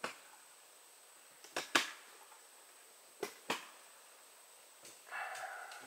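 Faint sharp clicks or snaps: one, then two quick pairs about a second and a half apart, followed by a short hissing rush near the end.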